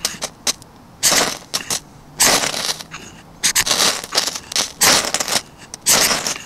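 Ferro rod scraped hard with the Condor Woodlaw bushcraft knife, five rasping strokes about a second apart, throwing sparks into a tinder bundle of fine wood shavings to light a fire.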